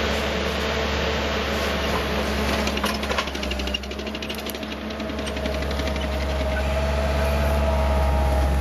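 ASV Posi-Track SR-80 compact track loader's turbo diesel engine running steadily. About three seconds in, a fast, evenly spaced clatter joins it for a second or two as the loader moves off, and the engine note then rises gradually toward the end.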